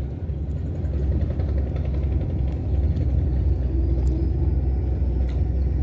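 Steady low rumble of an engine running, with a few faint clicks over it.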